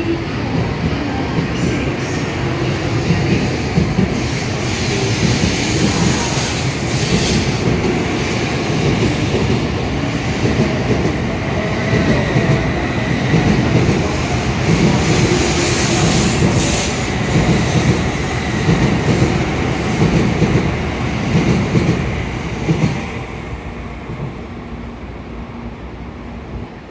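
N700S Shinkansen train pulling out of the platform, its cars running past close by with a steady rolling rumble from the wheels and a few brief rushes of hiss. The sound dies away over the last few seconds as the rear car clears.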